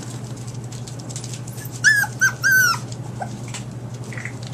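Young puppy giving three short, high-pitched whimpers about two seconds in, each falling in pitch, over a steady low hum.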